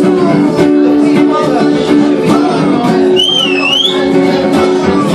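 Acoustic band playing live, strummed acoustic guitars holding a steady chord pattern. About three seconds in, a high whistle-like tone wavers and glides upward for under a second.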